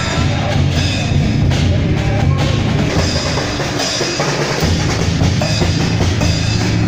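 Taiwanese procession drum cart (轎前大鼓) being played: a big bass drum with kit drums and cymbals, loud and continuous.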